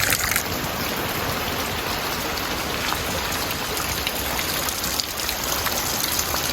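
Steady rain falling, an even hiss of a downpour on surfaces.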